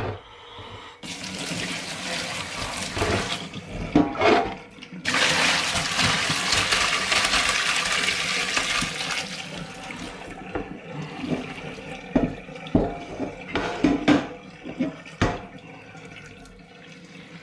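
A pot of boiling water with blanched pork being poured off into a sink, the water gushing out in a short pour and then a longer, louder one that tapers off. Several sharp metal knocks from the pot follow.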